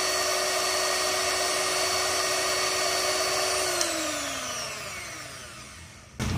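Miyako HM-320 electric hand mixer beating eggs in a bowl, its motor running with a steady whine. A little under four seconds in it is switched off with a click, and the whine falls in pitch and fades as the motor winds down.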